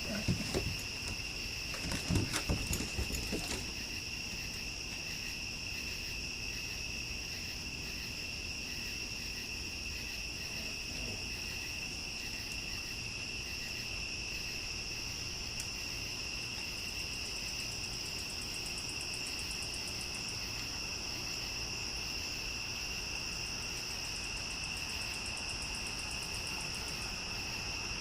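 A steady night insect chorus, a continuous high trill at two pitches. A few thumps and scuffles sound in the first few seconds.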